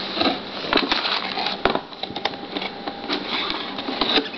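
A cardboard motherboard box being handled and turned over: cardboard scraping and rustling, with many short clicks and taps.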